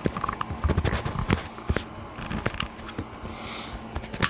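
Irregular clicks, taps and rustles of electrical cords and plastic packaging being handled and unwrapped.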